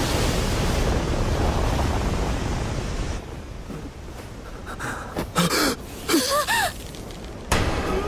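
Loud rushing roar of water blasted up out of a lake, easing off about three seconds in. Then a few sharp cracks and several short chirping calls, with one more crack near the end.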